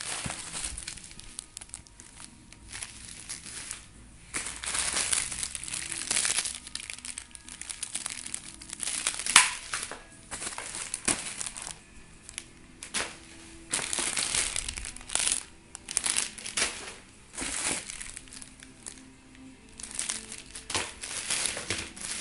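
Plastic packaging bags crinkling and rustling as they are handled and pulled out of a styrofoam box insert, in irregular bursts. The sharpest crackle comes about nine seconds in.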